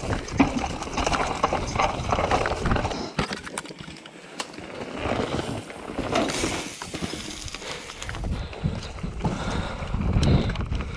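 Cube Stereo 150 full-suspension mountain bike descending rough, stony singletrack: tyres crunching over rocks and dirt and the bike rattling and clacking over each bump, with a quieter stretch a few seconds in.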